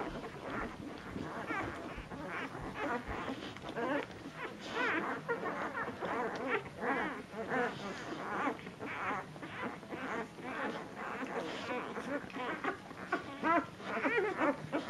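A litter of nursing puppies squeaking and whimpering nonstop with many short, overlapping high squeaks as they jostle for teats, with louder whines near the end.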